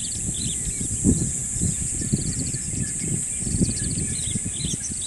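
African bush evening chorus: a steady high insect drone with repeated short, rapid trills and scattered bird chirps, over low irregular rumble and thumps, the loudest about a second in.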